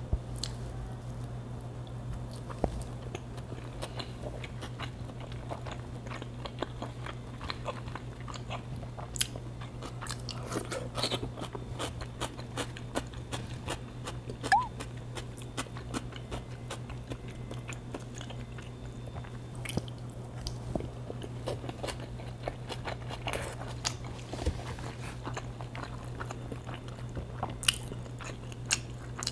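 Mouth sounds of a person eating salmon nigiri: chewing with many scattered short, sharp clicks and smacks, over a steady low hum.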